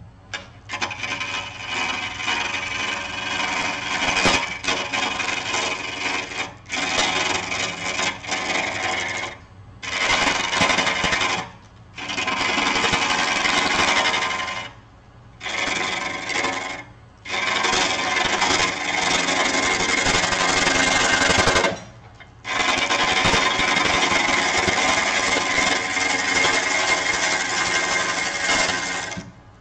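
Turning tool cutting the outside of a natural-edge bowl blank spinning on a wood lathe: a loud rasping cut in about seven passes of one to six seconds, broken by short pauses, over the lathe motor's low, steady hum.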